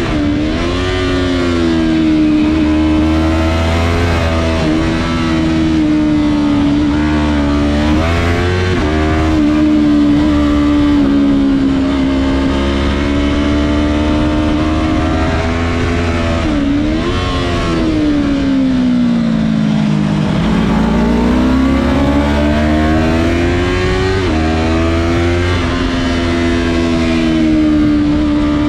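Yamaha R3 sport bike's parallel-twin engine running hard at high revs. Its pitch holds mostly steady, dips briefly several times, and once falls slowly before climbing again, as the throttle is eased and opened.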